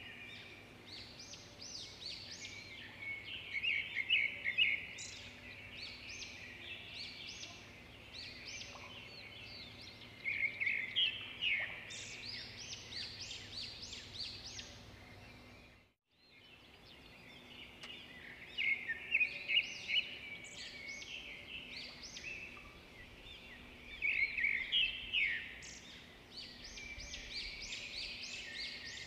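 Songbirds chirping and trilling in repeated bursts, over a faint steady hum; the sound cuts out briefly about halfway through and then resumes.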